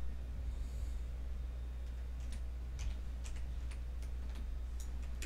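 Sparse, irregular clicks of a computer keyboard and mouse, starting about two seconds in, over a steady low electrical hum.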